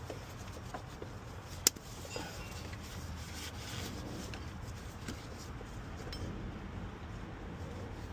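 Hand tools and car parts being handled: scattered light clicks and rubbing, with one sharp click about a second and a half in.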